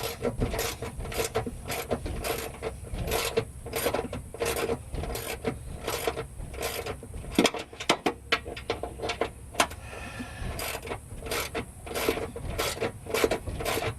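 Hand ratchet wrench clicking as a bolt is turned in short strokes, two or three clicks a second, with a brief pause about ten seconds in.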